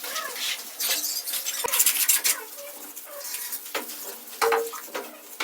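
Plastering trowel scraping and spreading cement plaster on a brick wall, in a series of irregular gritty strokes.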